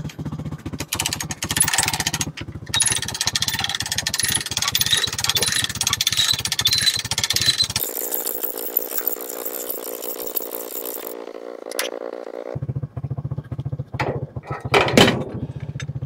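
A four-wheeler (ATV) engine idling with a steady low pulse, dropping out for a few seconds midway. Sharp metal clanks and knocks come over it near the end as the steel trailer dump box is tipped up.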